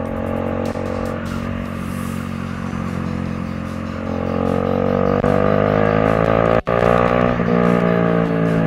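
Kawasaki 400cc motorcycle running through a newly fitted SC Project exhaust pipe. The engine note holds steady, then climbs in pitch from about four seconds in as it accelerates, with a brief break in the sound partway through the climb.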